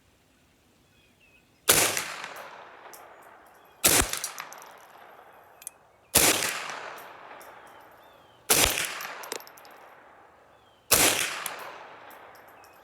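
.22 rimfire gun firing five single shots, about two and a half seconds apart, each followed by a long echo dying away. Faint clicks sound between the shots.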